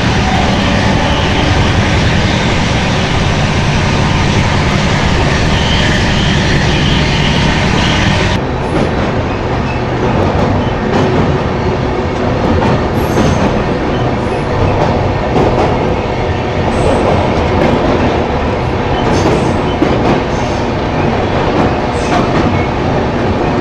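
Passenger train running on the rails: a loud, steady rumble with wheel clatter. About eight seconds in the sound changes abruptly, the high hiss dropping away, and a few short high squeaks follow.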